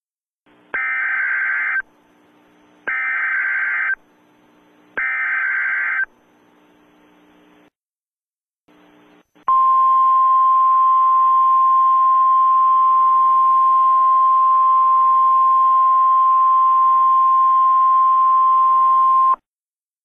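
Emergency Alert System header: three short buzzing data bursts, each about a second long, with a faint hiss between them, then one long steady attention tone for about ten seconds that cuts off sharply near the end. The tones mark the start of a new emergency alert message.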